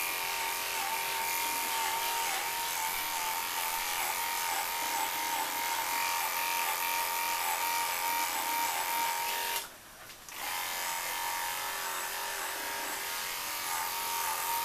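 Electric dog grooming clippers running steadily while clipping a cocker spaniel's head, with a steady whine whose pitch dips now and then. The sound cuts out for under a second about ten seconds in, then carries on.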